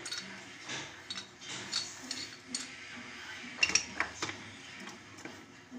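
Scattered light clinks and knocks of hard objects being handled, with a quick cluster of sharper, louder ones about two-thirds of the way through.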